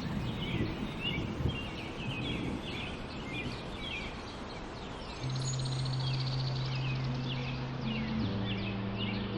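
Many small birds chirping over a steady outdoor hiss. About halfway through, background music with long held low notes comes in, the notes changing near the end.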